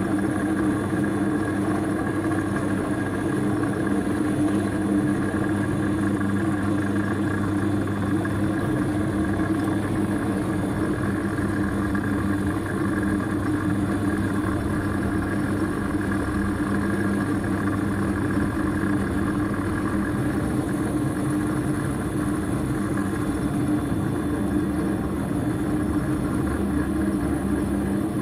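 Mini lathe running steadily while an M16 tap turning in the chuck hobs worm-gear teeth into an aluminium dural blank, which the tap drives round on its free arbor. A constant motor and gear-train hum with several steady tones, mixed with the cutting noise of the tap in the aluminium.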